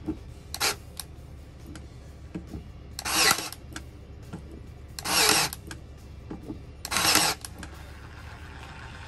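Ryobi P320 cordless 18-gauge brad nailer firing three times, about two seconds apart, each shot a short half-second burst as it drives a brad into scrap wood. A lighter click comes before the first shot.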